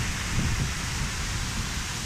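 Waterfall rushing: water pouring steadily over a two-tier cascade, a constant roar of spray with a low rumble underneath.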